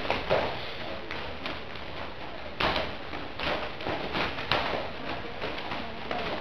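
Irregular thuds and slaps of padded sparring gloves and foot protectors landing in taekwon-do sparring, several sharp hits a second or so apart.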